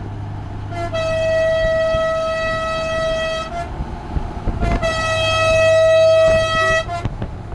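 Truck air horn sounding two long, steady single-note blasts, the first about two and a half seconds and the second about two seconds, with a pause between, over a steady low hum.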